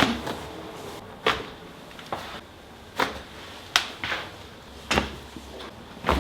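Chiropractic adjustments: six short, sharp cracks, spaced one to two seconds apart, the crunchy popping of joints being adjusted.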